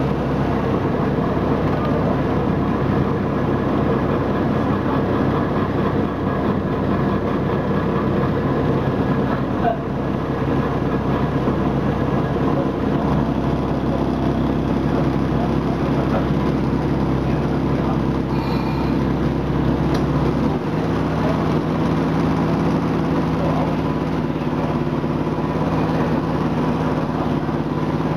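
Diesel engine of the Botchan Ressha replica steam locomotive running steadily, heard close from the coach behind it. Its note changes about two-thirds of the way in.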